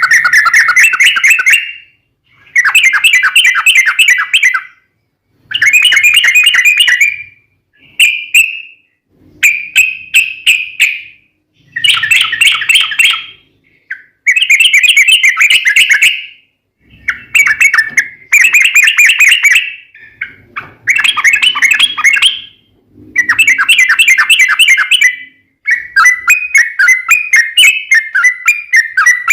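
Sooty-headed bulbul (trucukan) singing its long rolling song: a run of loud phrases of quick, bubbling notes, each about two seconds long with short gaps between. Near the end the phrases join into one unbroken rapid warble.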